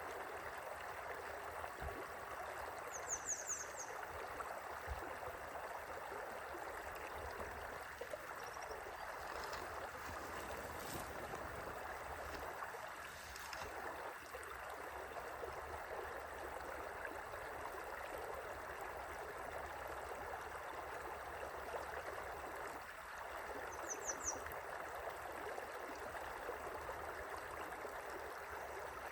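River water flowing steadily in an even rushing stream sound. Short high chirps come twice, about three seconds in and again near the end.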